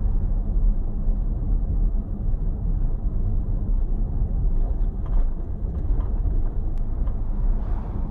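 Steady low rumble of a moving car driving along a street.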